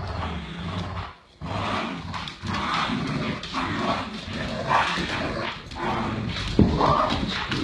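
Dogs growling and barking in play while tugging on a rope toy: a low growl runs under short barks. A loud bump near the end as a dog brushes against the camera.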